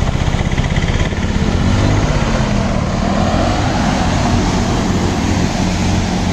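A bus ploughing through floodwater close by: its wheels churn up a loud, steady rush and splash of water over the low running of its engine. About a second and a half in, the engine note rises and falls.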